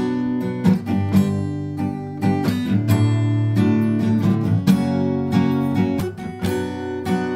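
Acoustic guitar played solo, chords strummed and left ringing. By about six seconds in it is being picked up by a BM-800 condenser mic through a Yamaha AG03 interface; earlier it comes through a Rode VideoMic Pro.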